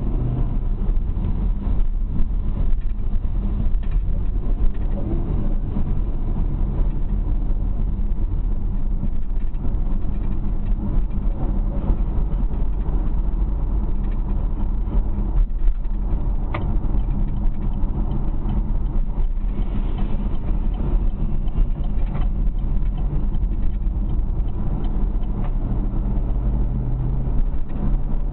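Chevrolet Camaro's engine running steadily, with a single sharp click about halfway through and a slight change in engine note near the end.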